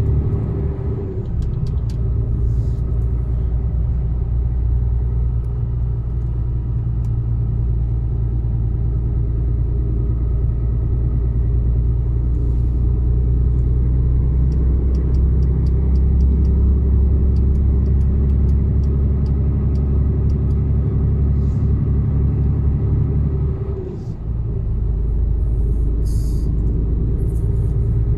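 Mercedes-Benz Actros truck's diesel engine running with a steady low rumble, its note changing about a second in and again with a brief dip in level about 24 seconds in. Faint light clicks sound over it.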